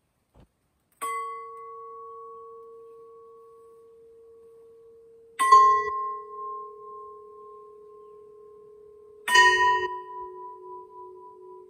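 Gongs made from welding gas tanks struck one after another with a stick: three strikes a few seconds apart, each ringing on with a long steady tone, each a little lower in pitch than the one before. The last rings with a wavering pulse.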